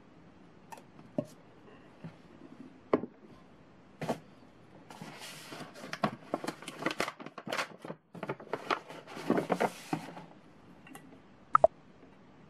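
Paper gift bag rustling and crinkling for several seconds as hands rummage inside it, with a few light knocks from handling glass jar candles before it and a sharp click near the end.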